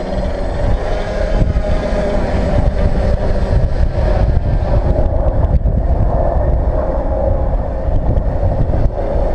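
Tricopter's three brushless outrunner motors with 10x4.5 propellers whirring in flight, their pitch wavering as the throttle changes. Wind rumbles on the microphone underneath.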